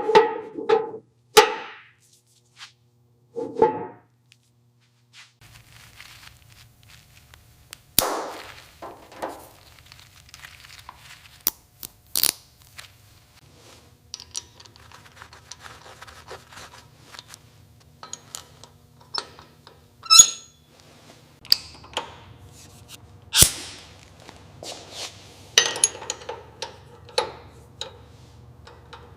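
Scattered knocks, clicks and clinks at irregular intervals, some ringing briefly, with a faint low steady hum starting about five seconds in.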